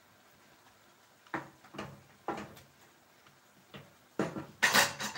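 Wooden spatula stirring a simmering pan of squid and cabbage, giving a string of scrapes and knocks against the pan from about a second in, the loudest and longest near the end.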